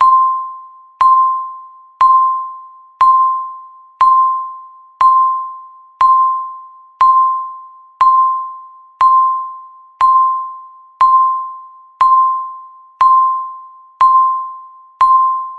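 Countdown timer's tick sound: a bright electronic ding, once a second, each ringing out and fading before the next, sixteen in all, marking the last seconds before the alarm.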